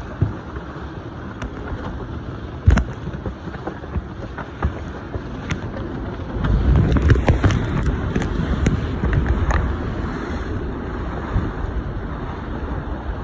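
Wind buffeting the microphone aboard a sailboat sailing upwind, with scattered clicks and knocks. The wind rumble grows louder from about halfway through.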